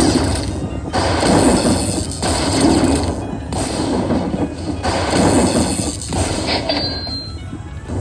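Slot machine bonus-round sound effects: about six bursts of spinning and landing sounds, roughly one every second and a half, with dings and clanks. A short high ding comes near the end.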